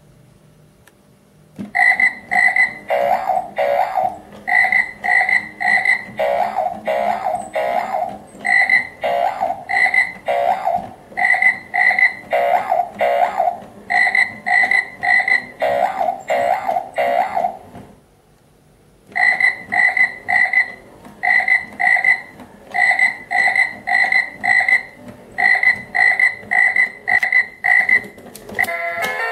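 Battery-powered toy frog playing its electronic croaking sound, a recorded croak repeated over and over, a couple of times a second, with a pause of about a second midway. Near the end a different chiming tune starts.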